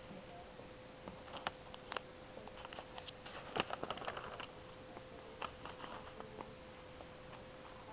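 Coupon insert pages being handled and turned: scattered paper crackles and rustles, busiest a little past the middle. A faint steady hum runs underneath.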